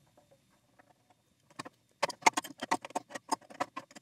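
Light, sharp metallic clicks and taps, several a second, starting about a second and a half in, as an adjustable wrench is handled and set onto the brass fitting of the pressure washer pump's pressure-adjusting valve during reassembly.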